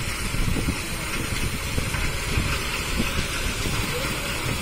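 Ballast hopper wagons rolling slowly with a steady low rumble and gritty rattling as ballast stones pour from their opened hopper doors onto the track.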